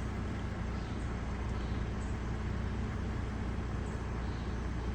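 Mercedes GLK 350's 3.5-litre V6 idling steadily, a constant low hum, while the scanner still reports a misfire on cylinder 2.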